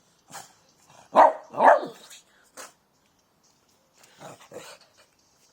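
Dog barking: two loud barks in quick succession about a second in, then a few fainter barks near the end.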